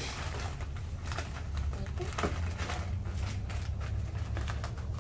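Crinkling of a Lay's potato chip bag being handled, mixed with chips being crunched: many short crackly clicks over a steady low rumble.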